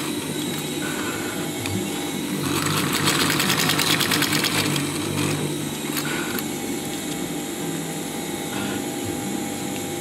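Sewing machine stitching through two layers of canvas, its motor hum and needle strokes running steadily. It stitches faster and louder for a few seconds in the middle, then settles back to a slower pace.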